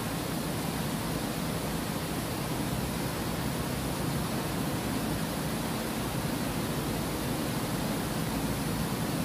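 Water pouring over a small concrete weir, a steady even rush.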